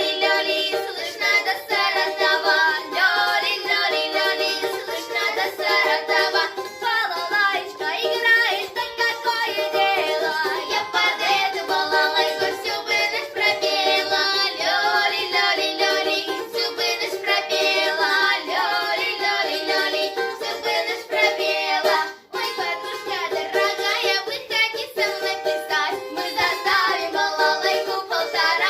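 Two young girls singing a duet to a musical accompaniment, with a brief break about two-thirds of the way through.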